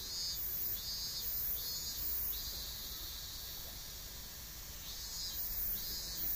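Insects calling in a high-pitched, evenly pulsing rhythm, a little more than one pulse a second, breaking off after about two seconds and starting again near the end, over a steady low background rumble.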